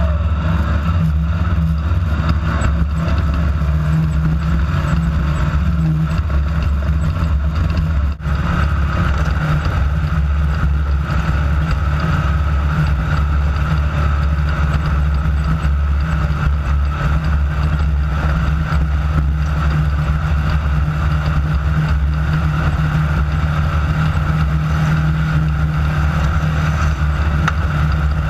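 Engine of a Class 9 desert off-road race car running hard and steady at racing speed, a continuous loud drone. There is one brief drop in engine sound about eight seconds in.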